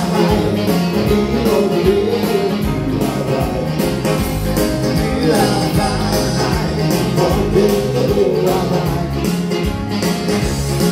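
Dance-band music with singing and a steady bass line, a song for couple dancing.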